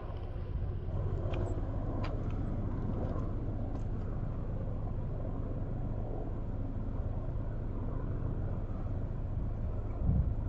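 Off-road vehicle driving on a dirt road: a steady rumble of engine and tyres.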